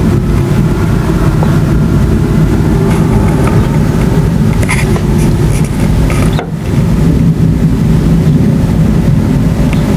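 Continuous thunder from a supercell thunderstorm: a loud, unbroken low rumble with no pauses between peals. It drops away briefly about six and a half seconds in, then carries on.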